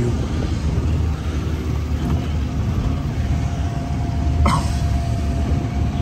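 Resort buggy riding along: a steady low rumble from the moving cart and air on the microphone, with a thin steady whine from about halfway and a single sharp click near the end.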